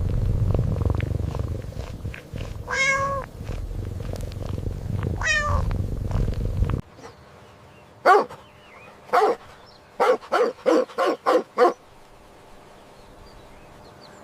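Domestic cat purring with two drawn-out meows, then, after a cut, a run of short meows: two spaced calls followed by five in quick succession.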